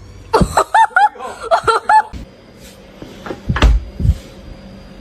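A person laughing in a quick run of short, high-pitched bursts, followed about three and a half seconds in by a few knocks and a heavy thump.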